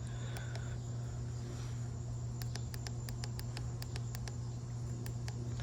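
Weather radio receiver between broadcasts: a steady electrical hum with faint hiss, and a run of quick, sharp clicks from about two seconds in to near the end.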